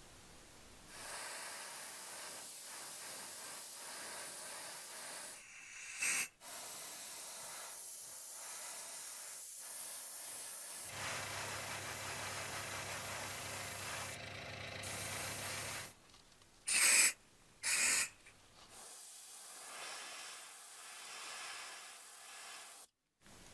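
Iwata Eclipse HP airbrush spraying paint: a steady hiss of air through the nozzle, broken by a few short pauses. Two short, louder blasts of air come about two-thirds of the way through, and then the hiss resumes.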